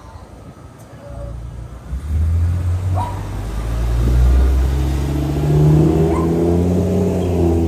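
Engine of a 2020 Blue Bird Vision gasoline school bus coming up about two seconds in and running under load, its pitch climbing gently as the bus accelerates.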